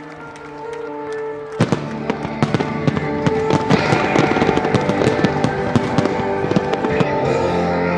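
Fireworks going off in a rapid run of sharp cracks and bangs, starting about a second and a half in and continuing, over music playing.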